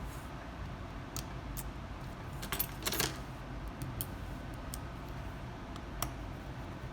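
Scattered light metallic clicks and taps, like small tools handled against a phone, with a denser cluster about two and a half to three seconds in, over a steady low hum.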